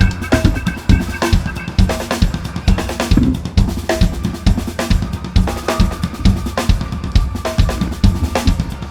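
Background music driven by a drum kit, with a steady beat of kick and snare hits over bass.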